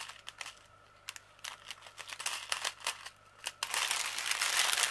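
Small plastic bags of diamond painting drills crinkling as they are handled: scattered crackles at first, becoming continuous crinkling about three and a half seconds in.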